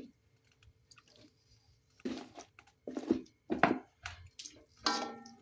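A few short, separate wet splashes and knocks as chicken feet are dropped into a pot of boiling water, starting about two seconds in.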